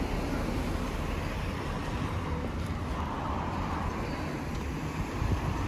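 Steady outdoor road-traffic noise: a continuous low rumble and hiss with no distinct events.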